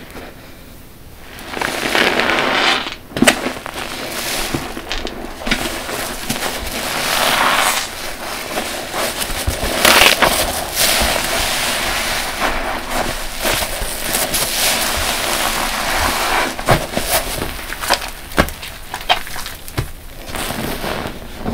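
Large soft yellow car sponge full of dish-soap suds squeezed and released by hand, again and again: wet squelching in swells, with dense crackling and popping of the foam.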